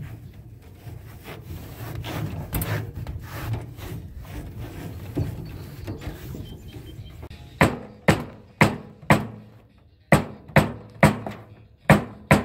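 About ten sharp knocks, roughly two a second, in the second half: hammer blows on half-inch hardware cloth laid over a wooden 2x4 brake, creasing the wire mesh into an angle. Before them, lighter handling and rubbing of the mesh on the board.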